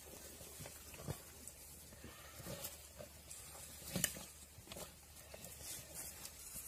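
Two Komodo dragons feeding on a deer carcass: irregular tearing, scuffling and knocking as they pull it apart over dry leaf litter. There is a sharp knock about a second in and a louder one about four seconds in.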